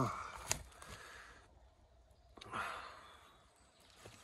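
A person breathing out close to the microphone, a sigh-like exhale swelling about two and a half seconds in and fading away, after a short click near the start.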